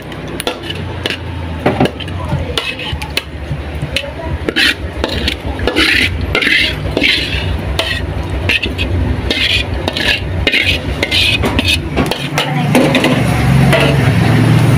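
Metal spatula scraping and knocking against a metal wok in short, irregular strokes as cooked fish in thick chilli sauce is scraped out onto a plate. A steady low hum runs underneath, growing louder near the end.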